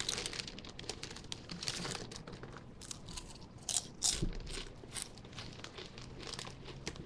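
Lay's foil chip bag crinkling as it is handled, with potato chips crunching as one is bitten and chewed. The crackles come in many short bursts, loudest about four seconds in.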